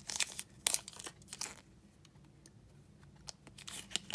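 Clear plastic protective film being peeled off an Apple iPad USB power adapter, crinkling and crackling. It comes in a burst over the first second and a half, then again near the end.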